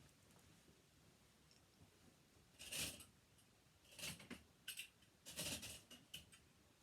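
Craft clamps being fetched and handled, giving a handful of short, faint clattering and rustling noises, the first about three seconds in.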